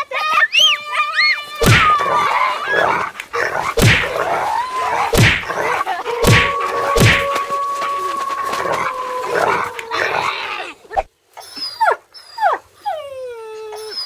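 A scuffle with several heavy thumps, over dog-like yelps and a long held howl, ending in a run of falling whimpers.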